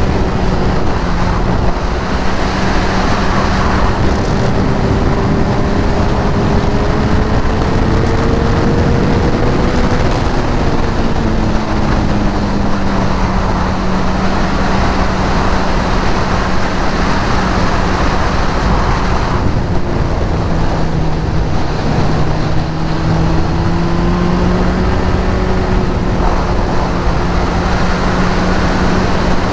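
Sport motorcycle engine running at a steady cruise, its note drifting gently up and down with the throttle, under a heavy rush of wind and tyre noise from riding at road speed.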